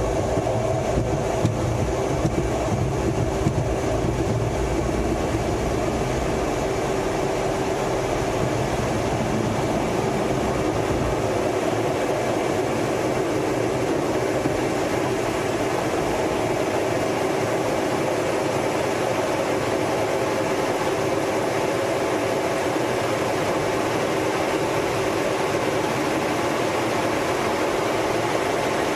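Twin turbofan engines of an F/A-18 Hornet running steadily at takeoff power, heard from inside the cockpit with a few held tones in the noise. A low rumble of the wheels rolling on the runway fades away about eleven seconds in as the jet lifts off.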